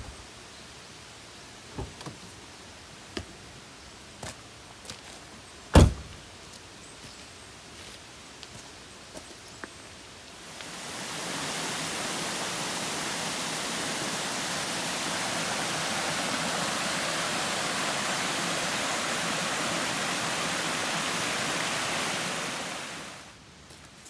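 A few scattered clicks and knocks over a low background, one sharper knock about six seconds in. Then a steady rushing hiss fades in about ten seconds in and fades out again near the end.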